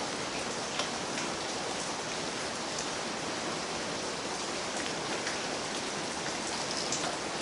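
Steady, even hiss with a few faint light clicks.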